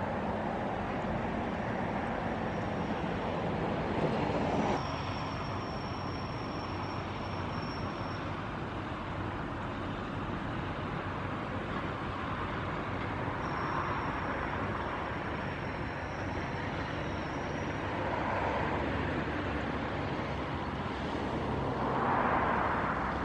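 Steady outdoor rumble of distant engines and traffic. A faint high whine comes in twice for a few seconds, and the rumble swells briefly near the end.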